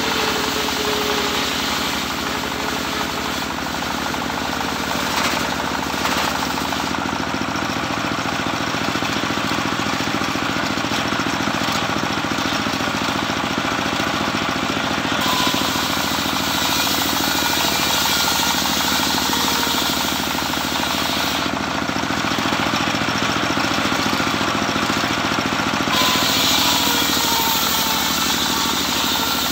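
Homemade belt-driven circular sawmill ripping teak heartwood lengthwise over the steady drone of the engine driving it. The hissing cut comes and goes: heavy in the first few seconds, again from about 15 to 21 seconds and from about 26 seconds on, with the blade spinning free in between.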